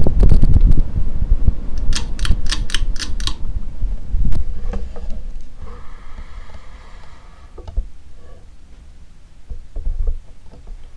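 Hampton Bay St. Claire ceiling fan's air buffeting the microphone as a low rumble that fades steadily, as the fan slows down. About two seconds in comes a quick run of roughly seven sharp clicks, and a few small knocks follow later.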